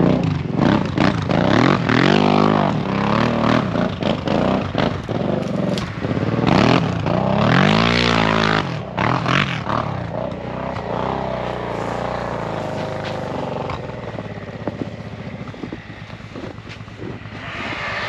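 Ski-Doo Expedition snowmobile with a 900 engine, heard from on the sled as it rides through deep snow, the engine revving up and falling back several times, with scattered knocks and scraping. In the last few seconds it settles into a steadier, quieter run.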